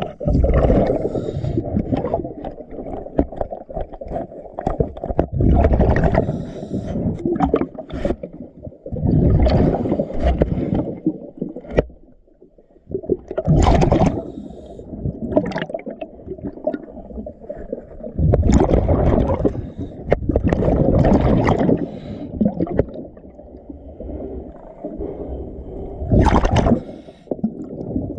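Underwater: a scuba diver's exhaled bubbles gurgling from the regulator in bursts every three to four seconds, over a steady low water rumble.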